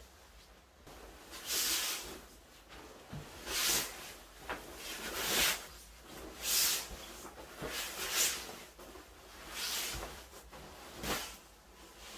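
Fabric rustling as a white duvet is stuffed into and shaken inside its cotton duvet cover. There are about seven separate swishes and flaps, a second or two apart.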